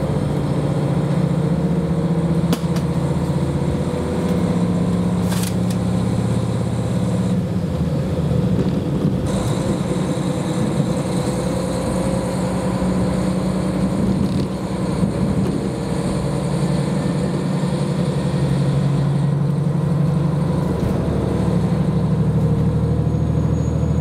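KiHa 40 diesel railcar in motion, heard from inside the car: a steady low diesel engine drone mixed with wheel and rail noise, with a few sharp clicks early on.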